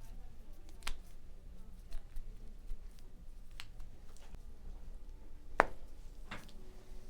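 A handful of short, sharp cracks and pops from a patient's joints during a chiropractic adjustment, picked up by a clip-on mic on the patient. The loudest crack comes about five and a half seconds in.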